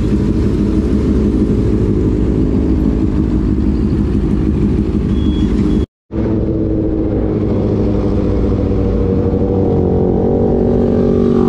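Motorcycle engines running at a standstill, a steady low rumble. After an abrupt cut, a motorcycle engine heard on board while riding, its pitch rising toward the end as it accelerates.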